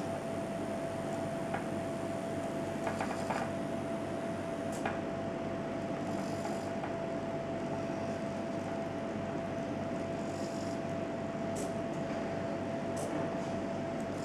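Hobby servos of a small desktop robotic arm running under power, a steady hum with one constant high whine, as the arm moves. A few light clicks sound along the way.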